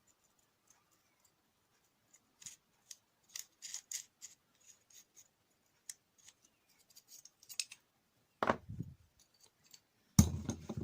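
Small metallic clicks and scrapes from a Record No. 151 spokeshave being taken apart to get its blade out, followed by two louder knocks about a second and a half apart near the end.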